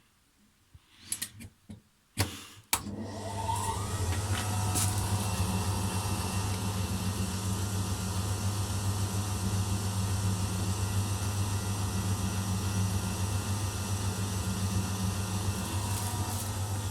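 Eudora Sparmeister 700 washing machine: a few sharp clicks, then about three seconds in its motor starts up for the spin cycle with a brief rising whine and runs on steadily with a strong low hum.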